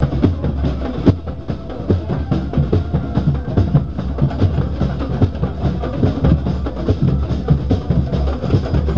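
Drum-led music with a busy, steady beat: many drums struck in a quick repeating rhythm.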